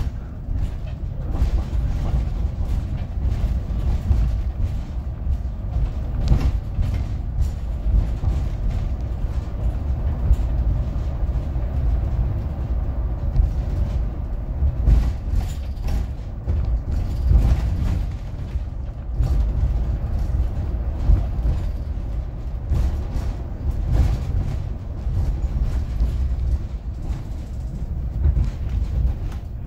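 City bus on the move: a steady low rumble with frequent short knocks and rattles from the body.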